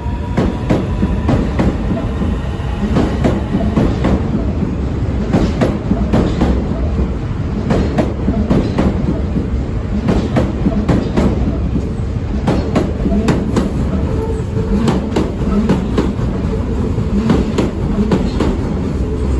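Osaka Metro Midosuji Line ten-car train running past the platform. A steady rumble runs under its wheels clacking over rail joints in irregular clusters of clicks.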